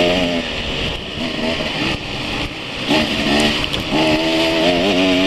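Enduro motorcycle engine riding along a dirt trail. The revs drop just after the start and the engine runs on a closed throttle for about two seconds. The throttle opens again about three seconds in, the pitch climbs, and the engine pulls steadily near the end, over a constant rush of wind.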